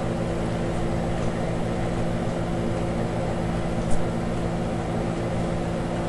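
Steady mechanical hum of room background noise, with a faint click about four seconds in.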